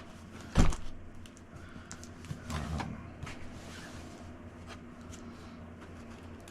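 Handling noises as a boxed car stereo is unpacked: one sharp knock about half a second in, a softer thud with rustling a couple of seconds later, then small scattered clicks.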